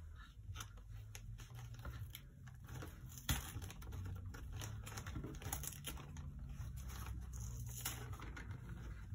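Tissue paper rustling and crinkling as it is peeled back and unfolded from a planner inside its box, with many small clicks and taps of fingers on the paper and box, and one sharper click about three seconds in.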